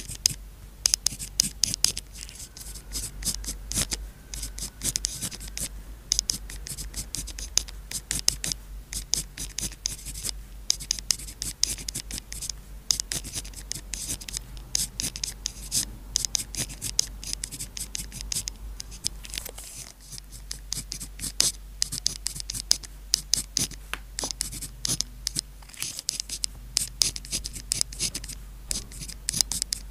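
Pen writing on paper: a quick, irregular run of short, crisp scratching strokes, one after another, as characters are written by hand.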